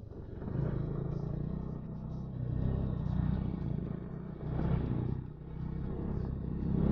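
Motorcycle engine running on the move, the throttle opening and easing off several times.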